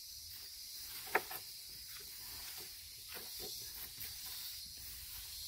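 Quiet outdoor background: a steady high hiss with faint rustling and small knocks from hands stripping greens and cutting at a table, and one short sharp sound about a second in.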